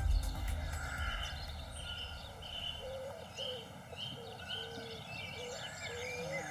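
Songbirds singing: a run of short, repeated whistled notes and lower warbling phrases over a soft outdoor hiss.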